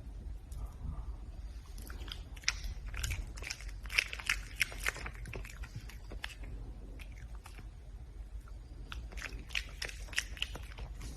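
Red panda chewing and crunching food: runs of quick, crisp crunches, a quieter lull midway, then more crunching.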